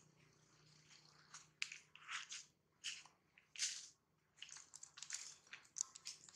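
Faint, irregular crackling and rustling, short crackles every fraction of a second to a second, over a very faint low hum.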